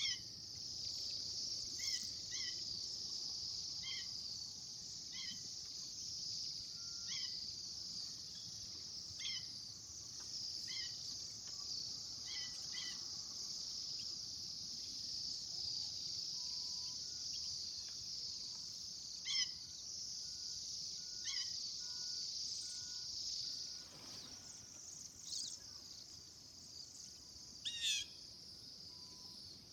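Outdoor chorus: a steady high-pitched insect buzz that fades about 24 seconds in, with short bird chirps repeating every second or two and a few louder bird calls near the end.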